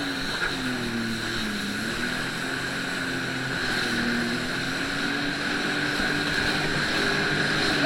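Jet ski engine running under way, its note dipping around a second and a half in and rising again a little later, over a steady rush of water and wind.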